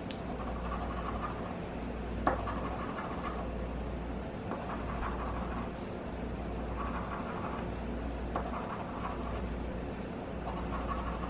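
Scratch-off lottery ticket being scratched, the coating scraped off in repeated short bouts of strokes, with a sharp tap about two seconds in.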